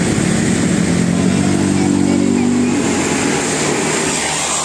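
Road traffic with a passing vehicle's engine running, a low steady engine tone that stands out for about two seconds in the middle.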